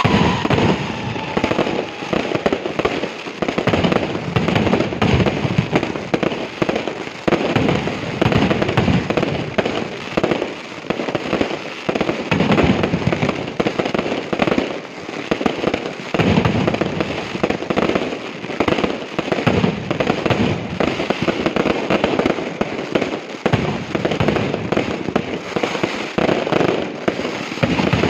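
Aerial fireworks display: a dense, continuous barrage of shell bursts and crackling reports, with the bangs coming in waves that swell and briefly thin out.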